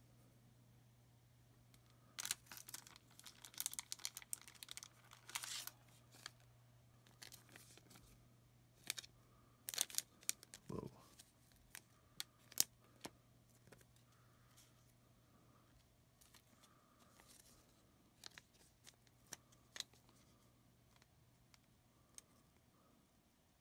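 Crinkly trading-card packaging being torn and crumpled for a few seconds, then scattered light clicks and taps as cards are handled, over a faint steady hum.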